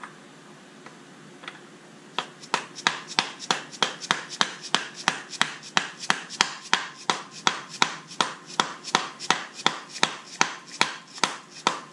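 Steady series of sharp knocks, about three a second, starting about two seconds in: a plastic mallet striking a socket used as a driver to tap a new IMS (intermediate shaft) bearing into a Porsche Boxster S engine case. The bearing is being driven in, going in straight.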